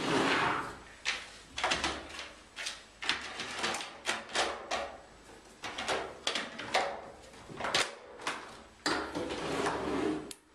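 Plastic clicks and knocks as the white front cover and housing of a heat-recovery extractor fan are handled and fitted back into place: a string of short sharp taps with some rubbing between them.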